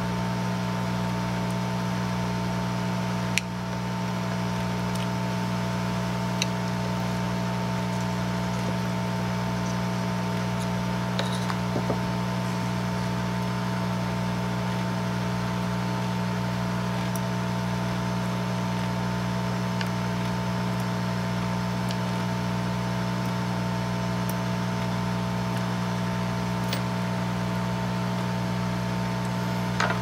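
Steady hum of bench equipment with several fixed pitches, with one sharp click about three seconds in and a few faint light ticks later.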